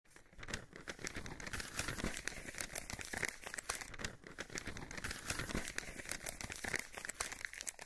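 Paper or parchment crinkling and rustling: a dense, uneven run of small crackles, the sound of a parchment scroll being handled.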